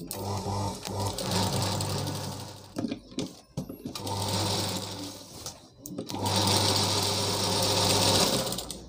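Jeemex industrial sewing machine stitching in three runs of two to three seconds each, with brief pauses between, as the lining is sewn onto the saree fabric along its edges.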